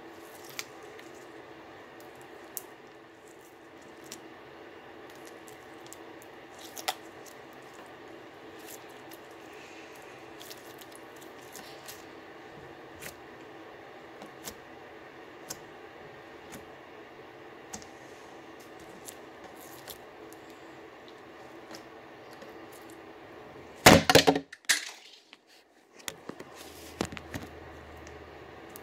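Glittery slime being squeezed and kneaded by hand, giving scattered small clicks and pops over a steady low hum. A brief, much louder crackle comes about 24 seconds in.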